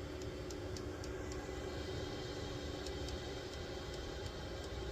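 Steady low mechanical hum with a faint held tone, and a few light ticks in the first second or so.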